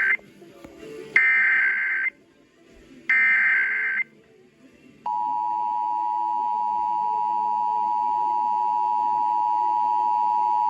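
Emergency Alert System header for a required monthly test: the tail of one short burst of warbling digital data, then two more one-second bursts about a second apart. About five seconds in, the steady two-tone EAS attention signal begins and holds.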